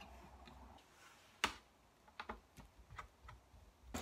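Scattered light clicks and taps, with one sharper click about a second and a half in: small parts of a computer being handled as it is unscrewed and taken apart.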